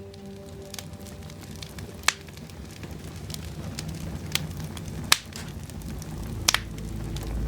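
Wood fire crackling, with several sharp pops spread over a soft hiss. A low rumble builds near the end.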